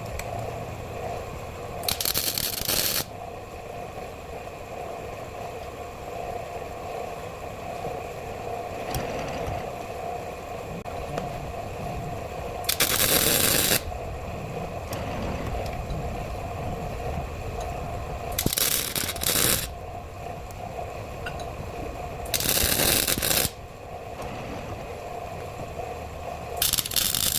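Metal parts and tools scraping and rattling during truck axle repair work, over a steady mechanical hum. Five harsh bursts of noise about a second long each are the loudest sounds.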